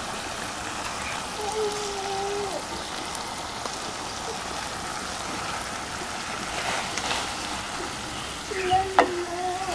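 Minced mutton (keema) sizzling in hot oil and tomato masala in a metal pan, a steady hiss, as it is stirred with a wooden spoon, the first frying of the meat just added. A short knock of the spoon comes near the end.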